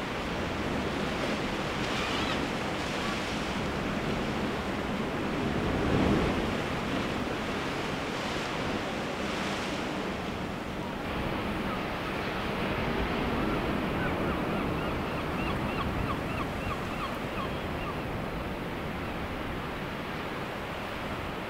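Seabird-colony ambience: a steady rush of wind and sea, with one louder surge about six seconds in. Faint distant seabird calls come in quick runs of short repeated notes in the second half.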